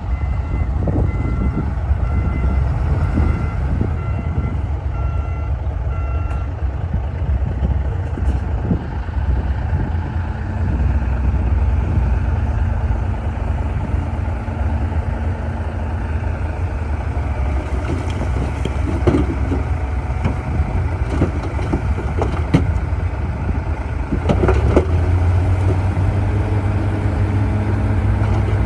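Bulldozer's heavy diesel engine working, with a backup alarm beeping steadily for the first six seconds or so. Later come scattered metallic knocks and clanks, and the engine note rises and grows heavier near the end.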